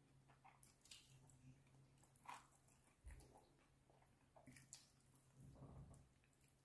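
Faint close-up eating sounds of fried chicken being pulled apart by hand and chewed: scattered soft sticky clicks and squishes over a low steady hum.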